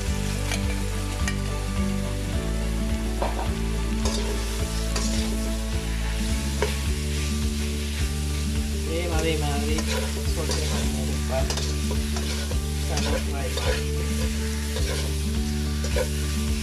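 Marinated prawns sizzling in hot oil in a wok, stirred and spread around with a spatula that scrapes and taps against the pan. Background music with steady low notes plays underneath.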